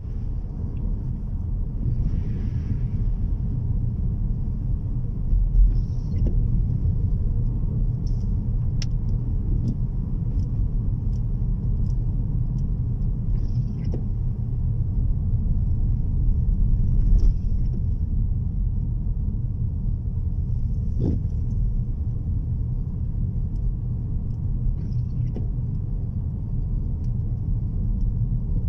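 Steady low rumble of a moving car heard from inside the cabin, with a few faint scattered ticks and a couple of brief louder bumps.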